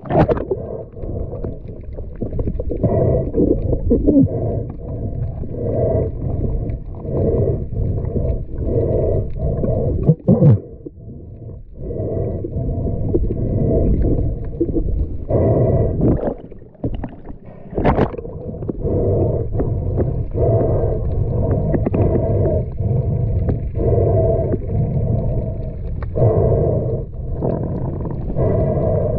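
Muffled underwater sound picked up by a submerged action camera: a low churning rumble that pulses about once or twice a second, broken by a few sharp knocks and two brief drop-outs.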